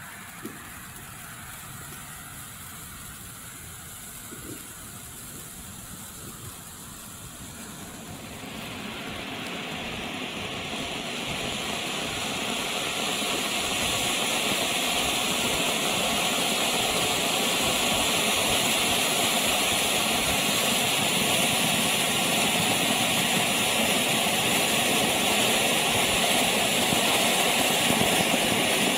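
Weco 'Color Stars' cone fountain firework burning. There are a few faint pops at first. From about eight seconds a hiss swells over several seconds into a loud, steady rushing hiss as the fountain sprays sparks.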